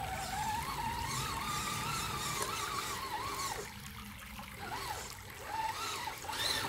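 Redcat Gen8 Scout II RC crawler's electric motor whining, its pitch rising and falling with the throttle as the truck crawls through shallow water, over a steady trickle and splashing of creek water.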